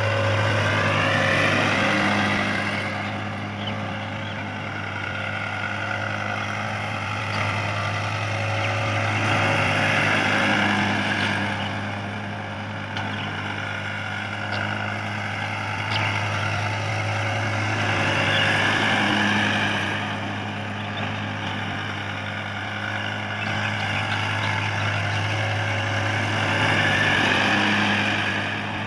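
New Holland tractor's diesel engine running steadily under load as it pulls a cultivator through ploughed soil, swelling louder and fading back roughly every eight or nine seconds.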